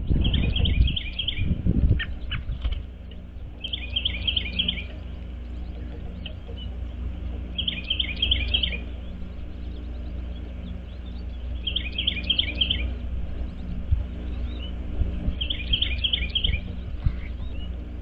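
A songbird singing the same short phrase of four or five quick downslurred whistled notes, five times, about every four seconds, over a steady low rumble. A few low thuds come in the first couple of seconds.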